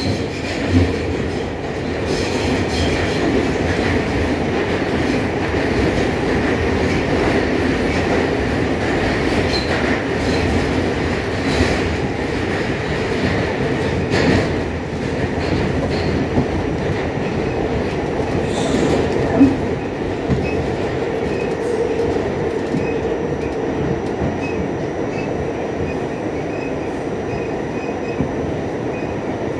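An R46 New York City subway car running on the track, heard from inside the car: a steady rumble of wheels and rails, with a few sharp clacks along the way and faint high wheel squeal in the later part.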